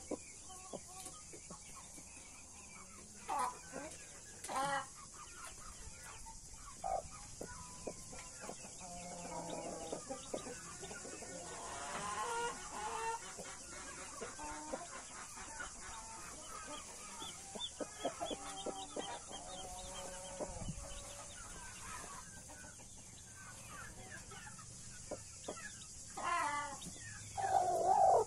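Chickens clucking: a broody hen's low, repeated clucks to her Australorp and Brahma chicks, with other birds in the run calling now and then. There is a quick run of clucks around the middle and two louder calls near the end.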